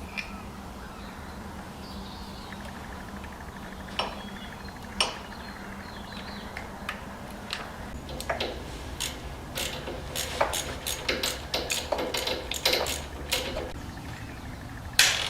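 Metal hand tools working on bolts: scattered clicks and metallic taps, a couple at first and then coming thick and irregular through the second half, with a louder click near the end, as a bracket is bolted over the mechanical fuel pump's mounting hole on the engine block.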